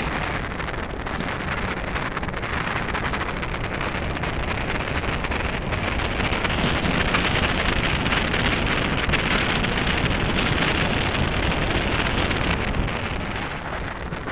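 Wind buffeting the microphone of a camera on a moving mountain bike, over the crackle and rattle of the tyres rolling on a gravel dirt track. The rush grows louder through the middle of the stretch.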